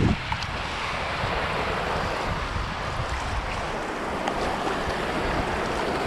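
Wind blowing across the microphone over water washing and lapping around a small boat on a lake, a steady rough hiss and rumble.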